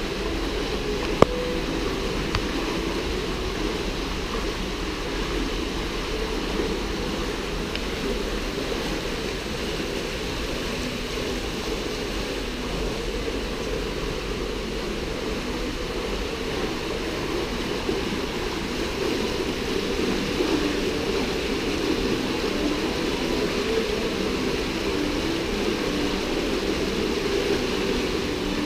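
Steady rush of running water from an indoor rock spring and the creek flowing from it, with one sharp click about a second in.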